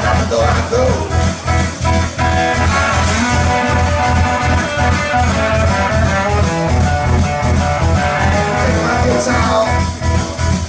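Live blues-rock band playing: electric guitar over bass guitar and a drum kit, with a steady, pulsing bass line.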